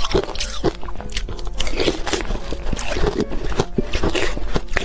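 Frozen shaved ice being bitten and chewed close to the microphone: many crisp crunches in quick, irregular succession.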